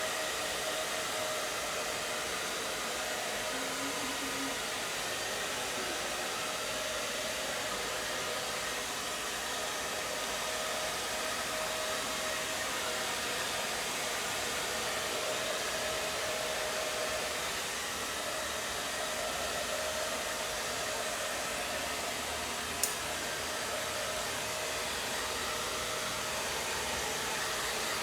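Electric hair dryer running steadily: an even rush of blown air with a faint steady hum, and a single sharp click late on.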